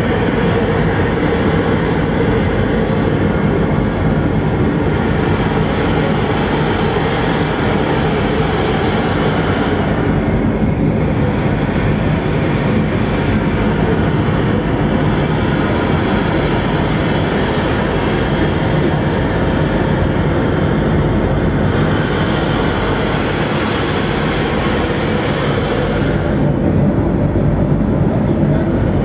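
Locomotives standing at a railway station, running steadily: a loud continuous rumble and hiss from a Nilgiri Mountain Railway steam locomotive with a diesel locomotive beside it, the high hiss swelling for a few seconds at a time, about five seconds in, at twelve seconds and near twenty-four seconds.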